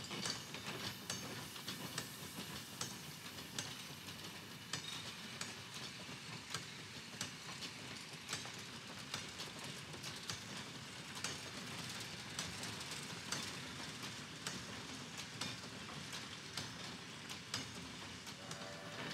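Train running on the rails: a steady rumble with irregular sharp clicks and clacks from the wheels.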